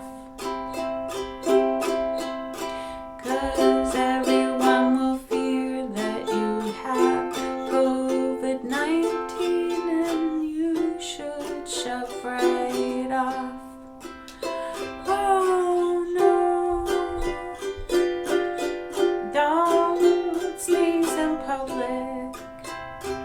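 Ukulele strummed in a steady rhythm, chords ringing under each strum.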